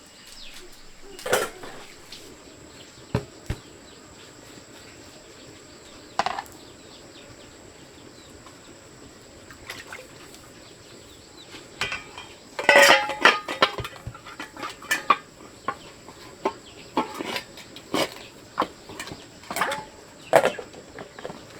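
Scattered sharp knocks and clattering, with a busy run of clatter a little past halfway.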